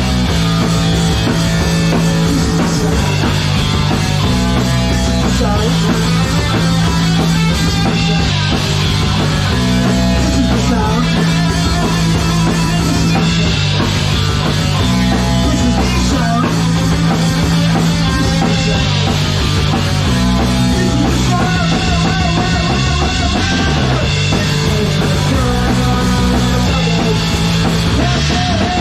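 Punk rock played by a live band: electric guitar, bass and drum kit going steadily and loud.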